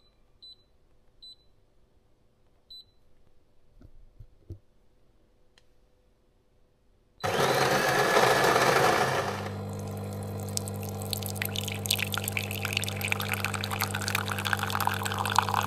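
Automatic coffee machine: a few short high beeps, then a loud grinding burst about seven seconds in lasting two seconds, then its pump running with a steady hum as coffee pours.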